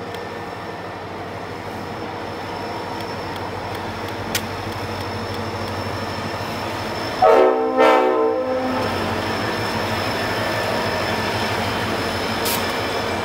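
Reading Blue Mountain & Northern diesel locomotives hauling loaded coal hoppers past, engines running steadily with the rumble of rolling cars growing louder. About seven seconds in the locomotive horn sounds two blasts, a short one and then a slightly longer one.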